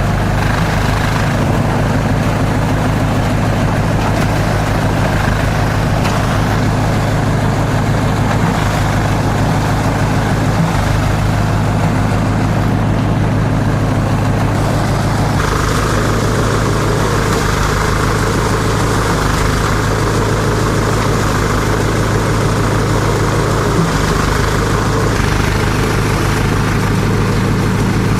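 Multi-purpose chopper-shredder-grinder machine running with a loud, steady drone and a strong low hum. Its tone shifts about halfway through.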